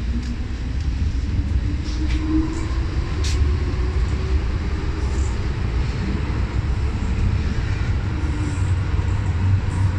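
MTR M-Train electric multiple unit running between stations: a steady low rumble of wheels on the rails with a faint humming tone, and a couple of sharp clicks about two and three seconds in.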